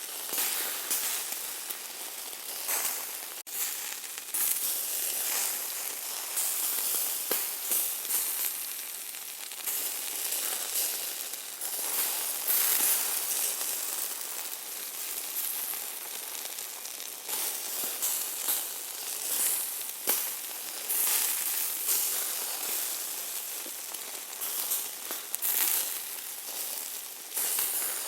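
Hamburger meat sizzling on high heat: a dense hiss with frequent small crackling pops, swelling and easing every second or two.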